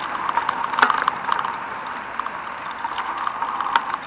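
Bicycle in motion: a steady rush of tyre and wind noise with scattered irregular clicks and rattles, the sharpest about a second in and again near the end.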